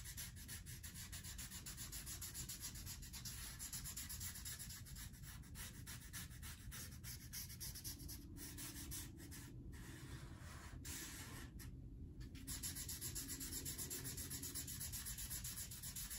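Sharpie permanent marker scrubbing rapidly back and forth on paper, filling in a solid black area. Faint, with a short pause about two-thirds of the way through.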